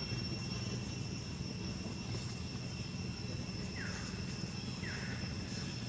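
Outdoor ambience: a steady high insect drone over a low rumble, with two short falling chirps about four and five seconds in.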